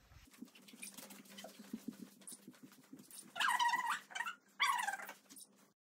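Ricoh Theta 360° camera giving two short electronic pings about a second apart, the second falling in pitch: its shutter sound as it automatically captures a picture. Soft footsteps on a wooden floor sound beneath them.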